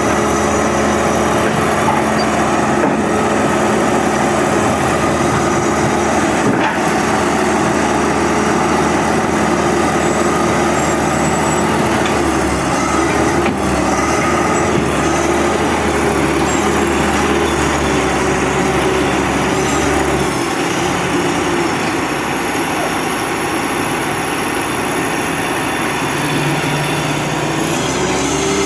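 Heavy-equipment diesel engines running steadily, their note shifting about 12 seconds in and again about 20 seconds in.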